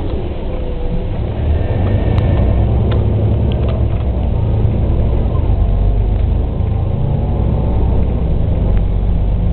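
City bus engine heard from inside the passenger cabin, a low drone that grows louder about a second and a half in as the bus pulls away and accelerates, with a few light rattles.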